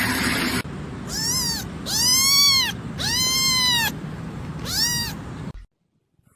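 A kitten meowing four times, each call rising and falling in pitch, the middle two long and drawn out. A short rush of noise comes before the first meow.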